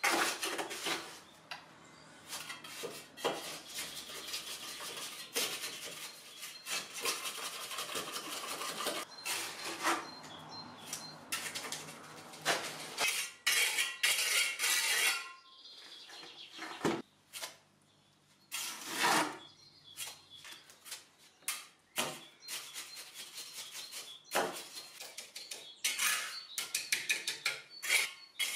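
Steel trowel blade scraping and tapping on a concrete screed floor as wet screed mortar is pressed into drilled holes and smoothed flush. The scrapes and taps come irregularly, with a brief pause about two-thirds of the way through.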